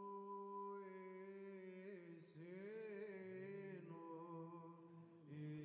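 Faint Orthodox church chant: voices sustain a steady low drone note while a melody line above holds, then moves in winding turns about two seconds in.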